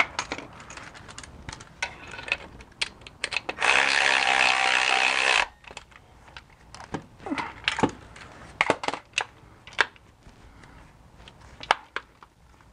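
A cordless ratchet's motor runs for about two seconds, spinning in a bolt on the ZF manual transmission's bellhousing while the clutch slave cylinder is being fitted. Scattered clicks and taps of hand tools on metal come before and after it.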